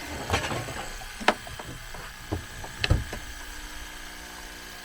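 A few separate clicks and knocks, the sharpest about a second in and near the three-second mark, over a faint steady hum.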